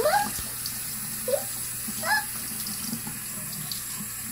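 Bathroom tap running steadily into a sink, with a few short high rising sounds over it.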